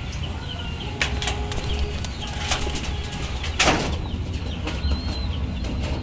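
Domestic pigeons feeding at a tray: irregular pecking clicks, a brief flutter of wings about three and a half seconds in, and a steady low rumble underneath.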